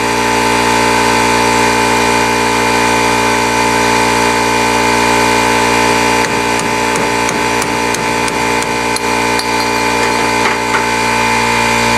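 Quarter-inch air die grinder with a cutoff wheel running steadily as it cuts through a carrier bearing, with a few short knocks about halfway through.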